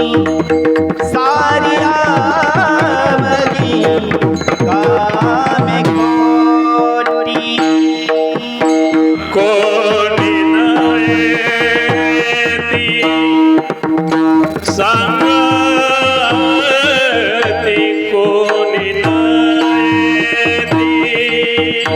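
Marathi kirtan music: a male voice sings a wavering, ornamented devotional tune over a steady held drone, with hand drums keeping a lively beat.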